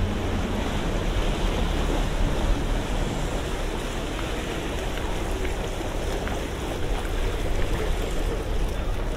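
Inboard engine of a Venetian water-taxi motorboat running low and steady as the boat comes slowly down the canal and draws alongside, with its wake water sloshing.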